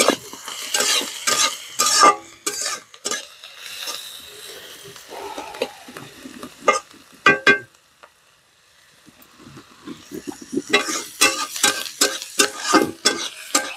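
A metal spatula stirring and scraping chopped onions in a steel kadai, with the onions sizzling in hot oil. There are quick runs of scrapes and clicks at the start and again near the end, and a softer sizzle with a few taps in between.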